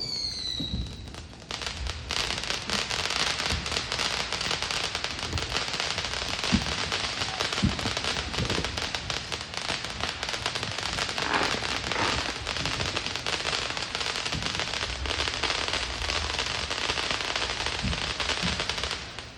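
Fireworks: a short, slightly falling whistle, then about seventeen seconds of dense, continuous crackling with a few louder pops, stopping just before the end.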